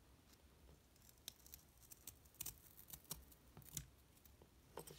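Faint, scattered small clicks and scratches of a half-unbent metal paper clip being worked through a hole in a cuttlebone by hand.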